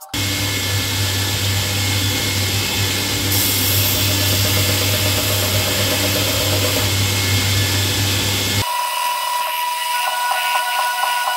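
Belt grinder running steadily while a small sand-cast bronze piece is ground on the belt. About eight and a half seconds in the sound cuts abruptly to a higher, evenly pulsing tone.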